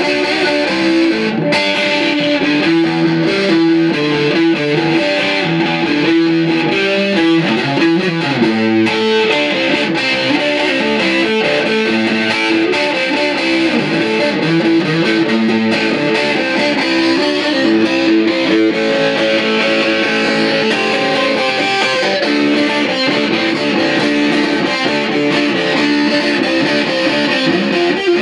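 Fender Stratocaster electric guitar played through a Marshall Valvestate 8040 combo amp with its 12-inch Celestion speaker, a continuous passage of sustained, changing notes. This is a play test of the repaired amp, which was dead and now works.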